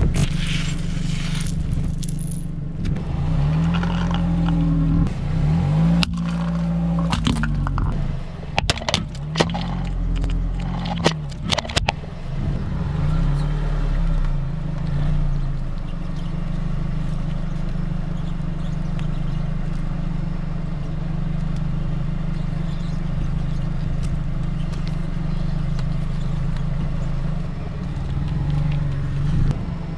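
Car creeping slowly, its engine running low with the pitch rising and falling a few times, while the tyre squashes small soft objects with a scatter of sharp crunches and pops between about 6 and 12 seconds in. A short burst of static-like noise opens it.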